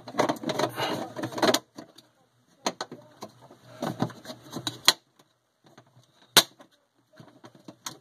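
Plastic handling noise as a freezer's evaporator fan motor assembly is pushed and clipped into the back panel. It rustles and scrapes for the first second and a half, then gives scattered clicks, with one sharp snap about six seconds in.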